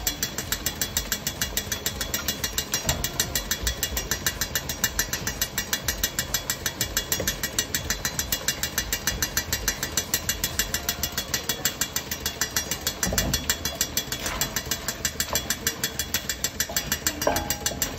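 A fast, even mechanical ticking, about five or six ticks a second, runs throughout. Now and then a wooden spoon stirs and knocks the seafood in a stainless steel wok.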